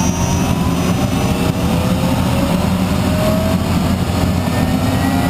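Bell 206 JetRanger's Allison 250 turboshaft spooling up during engine start, a whine rising steadily in pitch over a constant low rumble as N1 climbs with the starter still engaged.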